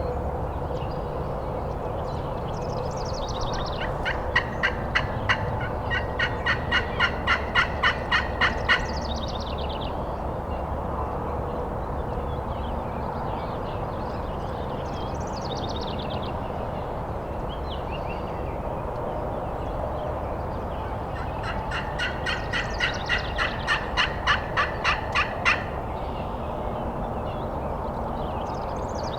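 Two long series of turkey yelps, evenly spaced at about three notes a second, the second series getting louder as it goes. Faint high, falling songbird chirps come in between.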